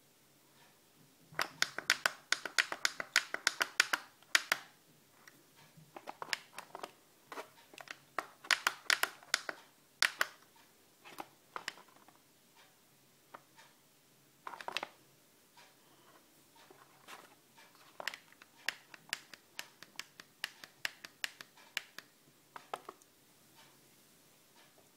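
Push buttons of an Acewell ACE-5456 digital dashboard clicking as they are pressed over and over to step through the voltmeter settings, in fast runs of several clicks a second with pauses between, then scattered single clicks.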